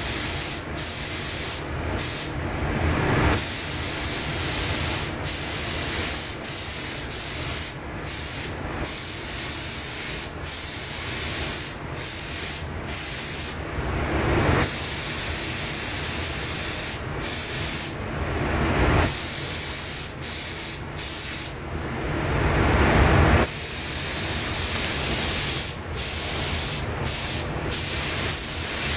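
Gravity-feed compressed-air paint spray gun hissing as it sprays paint onto motorcycle parts, broken by many brief breaks between passes, with a few louder stretches.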